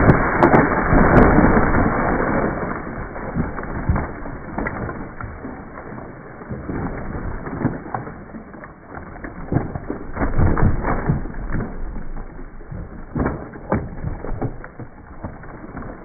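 A dead tree crashing to the ground: a loud crash of the trunk and breaking branches in the first two or three seconds. Scattered snaps and cracks of wood follow as branches and debris fall and settle, with a cluster about ten seconds in and again a little later.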